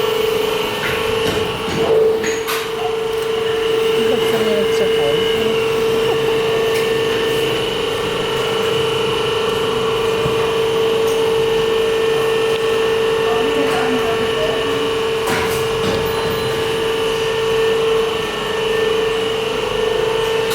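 Factory machinery running with a steady, even whine, with a couple of sharp knocks, one about two seconds in and one about three quarters of the way through.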